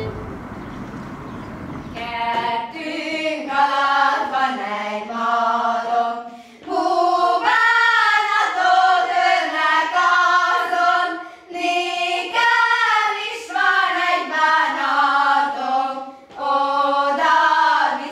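Women and girls singing a folk song together without accompaniment, in phrases a few seconds long with short breaks between them. The singing starts about two seconds in, after a steady hiss.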